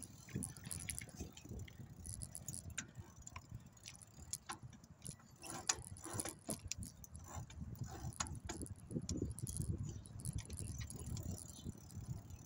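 Bicycle rattling along a rough dirt trail: irregular clicks and jingles from loose parts over a low rumble of tyres and wind.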